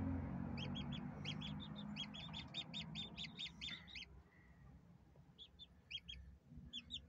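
A newly hatched chick peeping from under a brooding hen: a quick run of short, high peeps, about four a second, for some three seconds, then a few more after a pause and again near the end. A low rumble fades out over the first few seconds.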